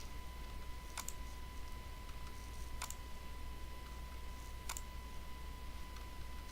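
Computer mouse clicking three times, about two seconds apart, over a steady low electrical hum and a thin steady high whine.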